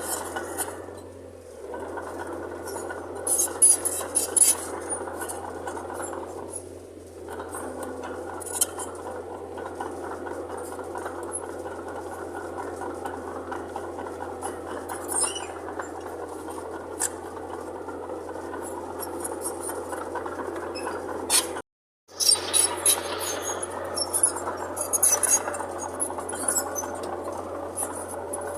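Mitsubishi BD2J bulldozer's diesel engine running steadily, with frequent sharp metallic clinks and clanks from the working machine. The sound cuts out briefly about three-quarters of the way through.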